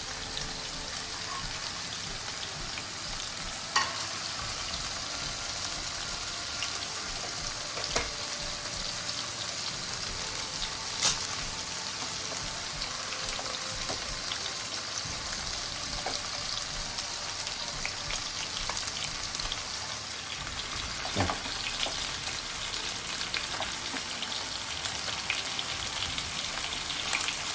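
Marinated chicken leg pieces searing in hot ghee in a pan on high flame: a steady sizzle, with a few sharp pops now and then.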